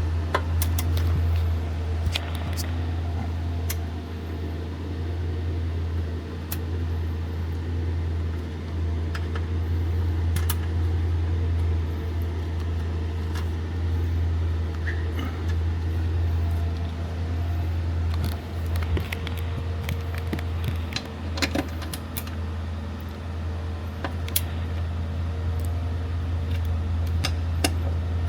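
Scattered metallic clicks and clinks of a small ratchet and socket tightening bolts in a car's engine bay, over a steady low hum.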